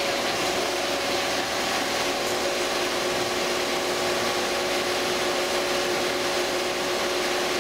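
Richpeace L1500 high-speed multi-head quilting machine running: a steady, even mechanical noise with a constant hum.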